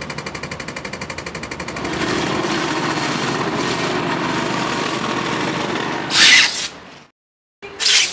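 A walk-behind road-works machine working the road surface: a rapid rattle, about a dozen beats a second, becomes a louder steady grinding noise from about two seconds in. Near the end come two short, very loud bursts of noise, with a moment of dead silence between them.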